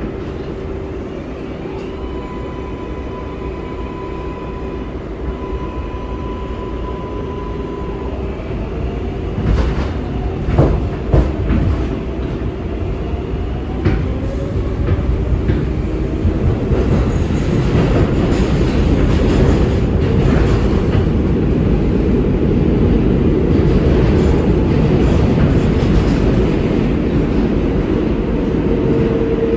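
New York 7 train's R188 subway car heard from inside, running through the tunnel and picking up speed: a steady rumble of wheels and motors that grows louder, with a rising whine and a cluster of wheel clicks and squeals about ten seconds in.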